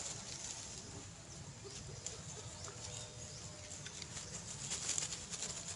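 Water splashing and lapping as monkeys swim through a pond, with many small scattered splashes.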